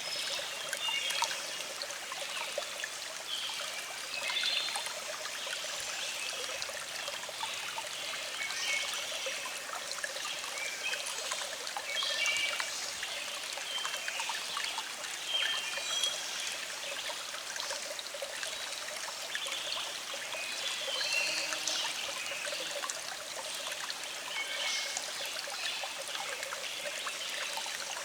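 A small stream flowing, a steady trickle of running water.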